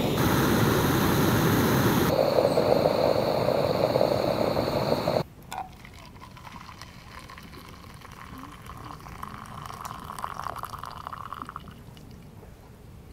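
A Campingaz cartridge gas stove burning under a moka pot with a steady hiss, getting louder about two seconds in and cutting off suddenly about five seconds in. Then hot coffee is poured from the moka pot into a mug, a steady trickling pour for a few seconds that stops near the end.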